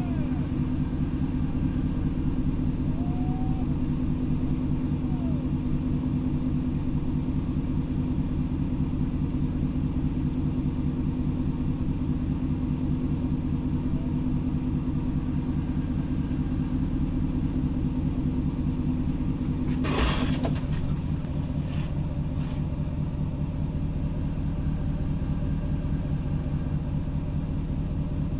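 Steady low hum of an idling vehicle engine. A sharp click comes about two-thirds of the way through, after which the hum eases slightly.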